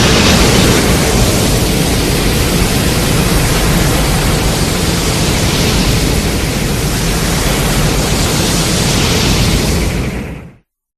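Film sound effect: a loud, steady rushing noise over a deep rumble that stops abruptly about ten seconds in.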